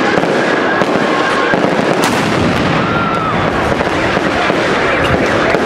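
Fireworks display going off: a dense, continuous crackle and popping of bursting shells, with one sharp bang about two seconds in.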